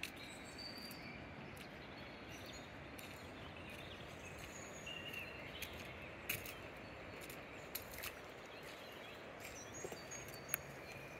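Steady rush of the River Goyt flowing far below, with short bird chirps scattered over it and a couple of sharp clicks around the middle and near the end.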